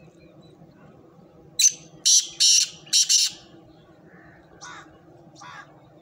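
Black francolin (kala teetar) calling: a harsh, grating phrase of four loud rasping notes in quick succession starting about a second and a half in, followed by two fainter notes near the end.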